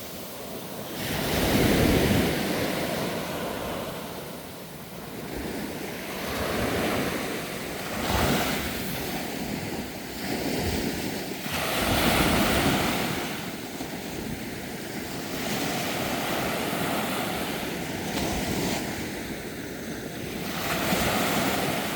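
Sea waves breaking on the shore and washing back, the surf rising and falling in surges every few seconds, with wind on the microphone.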